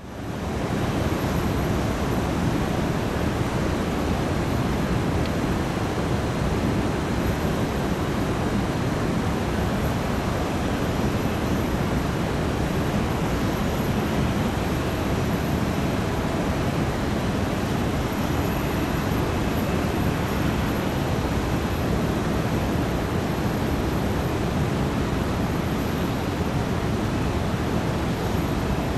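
Airbus A330-300 airliner on final approach to landing: a steady rushing jet-engine noise that fades in at the start and holds level.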